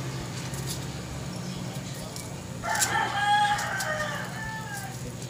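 A rooster crowing once, a single long crow starting about halfway through and trailing off in pitch at its end, over a steady low hum.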